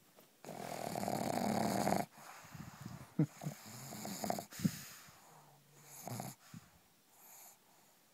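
Pug snoring: a long harsh breath, then a run of rattling snores, dying down to fainter snuffles toward the end.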